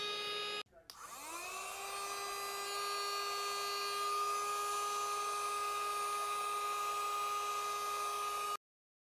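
Mini cordless vacuum cleaner's motor running with a steady high whine. It cuts out under a second in, then spins up again with a rising whine, runs steadily, and stops abruptly near the end.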